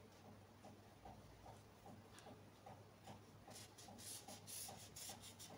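Green felt-tip marker drawn along a wooden ruler on paper, a quick run of scratchy strokes starting about two-thirds of the way in. Before that there is only faint room tone with a soft, even ticking.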